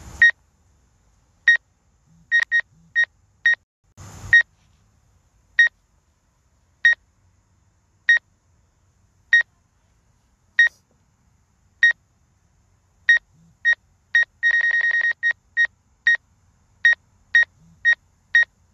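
Short electronic beeps at one high pitch over near-silence, mostly one about every second and a quarter, with a few extra beeps in between. About two-thirds of the way through comes a quick rapid run of beeps.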